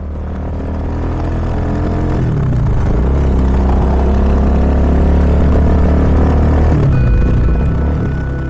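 Motorcycle engine running on the road, a loud deep rumble whose pitch rises and falls a couple of times as the rider works the throttle.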